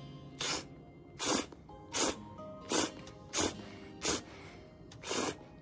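Short, sharp breaths through the nose, about one every 0.7 seconds, from a person chewing a mouthful of pizza close to the microphone, over soft background music.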